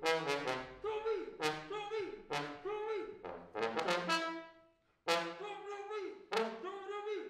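Unaccompanied trombone playing short, punchy jazz-funk figures with pitch bends into and off the notes. About four and a half seconds in, a held note dies away, and after a half-second break the playing resumes.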